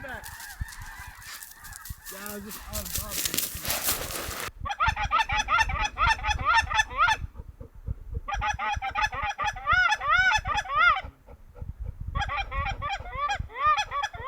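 Wind noise with a few scattered goose calls, then, about four and a half seconds in, a flock of snow geese calling: many overlapping high yelping calls in three bursts with short breaks between them.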